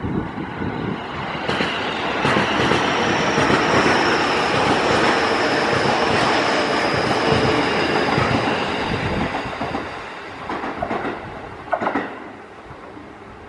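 JR Nambu Line electric commuter train running through the station: rail and wheel noise builds over a couple of seconds, holds loud with a high whine for several seconds, then fades, with a few wheel clacks over rail joints near the end.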